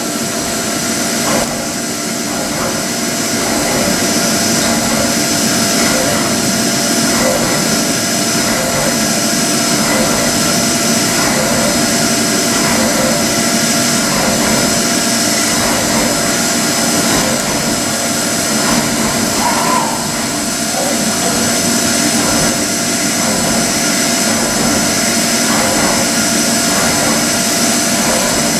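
CNC milling machine cutting a metal workpiece with an end mill under flood coolant: a steady spindle whine and cutting noise over the hiss of the coolant spray.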